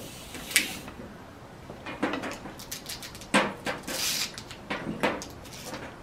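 Scattered clicks and knocks of hands working the fittings of a Redline Detection Smoke Pro smoke machine while hooking up its compressed-air line, with one short hissy burst about four seconds in.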